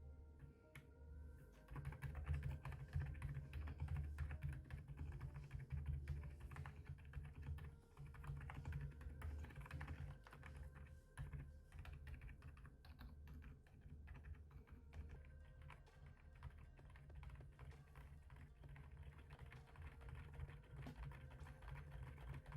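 Typing on a mechanical keyboard fitted with Akko Penguin silent tactile switches: a quiet, continuous run of keystrokes starting about a second and a half in.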